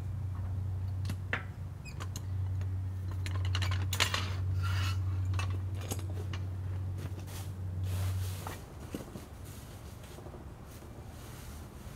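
Hi-Lift jack being worked by its handle: irregular metallic clanks and clicks from the jack's climbing mechanism and handle, busiest in the middle, over a steady low hum that stops about eight and a half seconds in.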